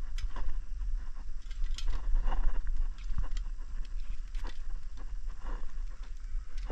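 Plastic-jacketed fibre-optic drop cables rustling, scraping and clicking against each other and the pole's metal clamp as they are pulled and sorted by hand, in irregular short bursts over a steady low rumble.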